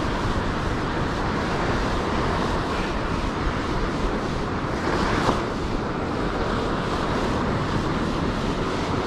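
Wind on the microphone and breaking surf, a steady rushing noise that swells briefly about five seconds in.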